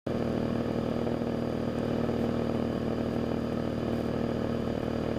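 Cessna 172RG Cutlass in flight, its four-cylinder Lycoming engine and propeller giving a steady, even drone.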